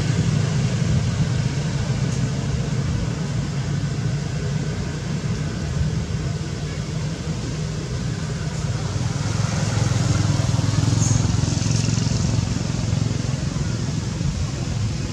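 Steady low rumble of a running motor vehicle engine.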